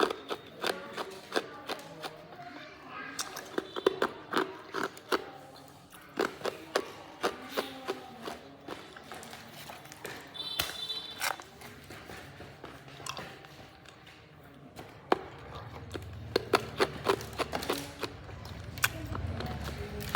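Hard ice being bitten and chewed close to the microphone: a long run of sharp, irregular crunches and cracks.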